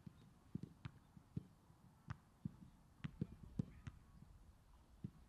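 Footballs being kicked on a grass pitch during a passing drill: faint, irregular dull thumps of boot on ball, about ten of them, some overlapping as several balls are played at once.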